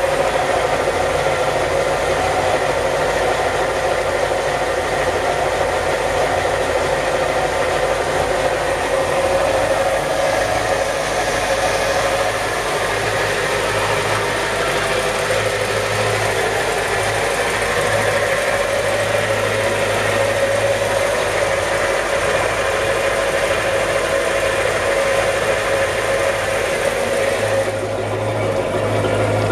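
Inboard engine of a Yamaha STR28 boat idling steadily.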